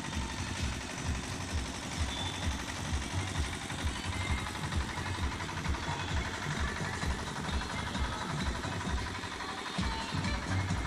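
An engine running steadily, with a fast low throb.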